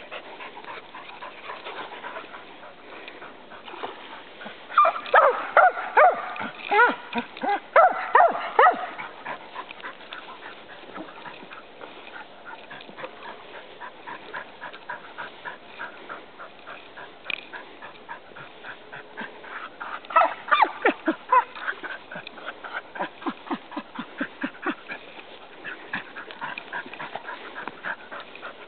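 Dog whining in high, bending cries. The cries come loudest in a run about five to nine seconds in and again about twenty seconds in, with softer whines between. It is the excited, frustrated whining of a dog held back on its leash from the water.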